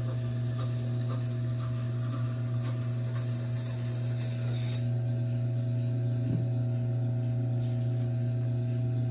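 Tormek T4 wet grinder's motor running with a steady hum while a knife edge is drawn very lightly across the wet grindstone to take off the burr. The hiss of steel on stone builds over a couple of seconds and cuts off suddenly about five seconds in as the blade comes off the stone.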